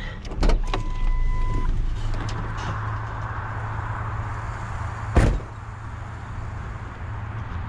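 Vehicle engine idling with a steady low hum, a short single-pitch beep about a second in, and one loud thump about five seconds in.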